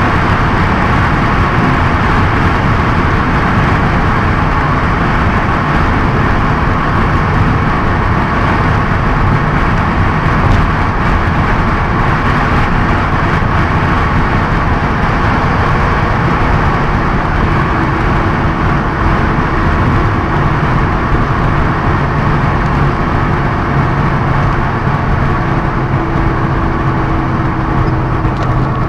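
Cabin noise of a Honda S2000 at high road speed: steady wind and tyre noise with the engine running underneath, as the car slows from high speed. A low steady hum comes through more clearly in the second half.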